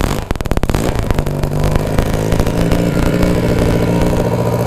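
Yamaha XS650 air-cooled parallel-twin engine catching on a kick-start from cold. It fires in quick, uneven pulses for about the first second, then settles into a steady run.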